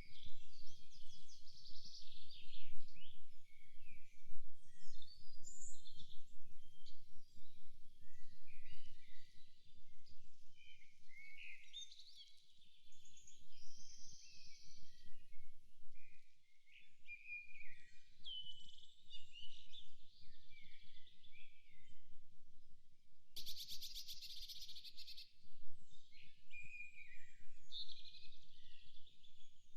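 Several songbirds singing and calling over one another in a forest, a chorus of short chirps, whistles and trills. About two-thirds of the way in, a rapid high rattle lasts about two seconds.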